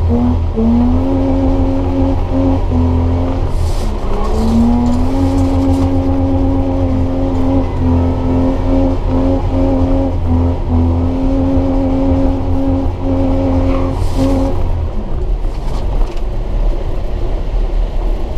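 Nissan Patrol's swapped-in TB48 4.8-litre straight-six, breathing through headers, held at high revs with short breaks, heard from inside the cabin. The revs dip and climb back twice, then drop away to a lower rumble near the end.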